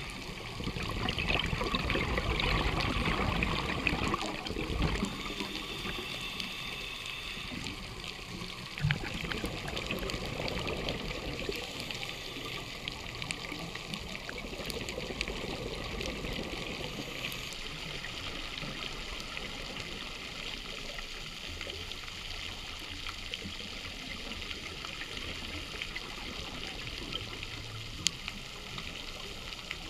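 Underwater sound through a diving camera's housing: a steady rush of water and a scuba diver's exhaled bubbles, loudest in the first few seconds. Two sharp clicks come about nine seconds in and near the end.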